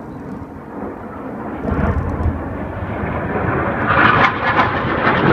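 Jet noise of an F/A-18 Hornet passing overhead, growing steadily louder as the jet comes closer and loudest near the end.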